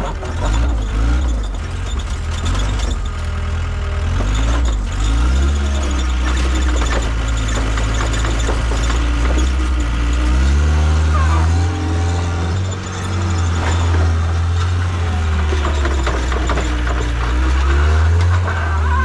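John Deere track skid steer's diesel engine and hydraulics working as it pushes and spreads dirt, the engine note dipping and rising again and again under load.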